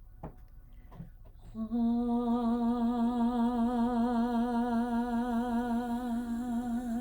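A woman's voice toning a long, steady "ah" with a gentle vibrato, used as a sound-healing tone. The note starts about a second and a half in, after a soft breath, and is held at one pitch.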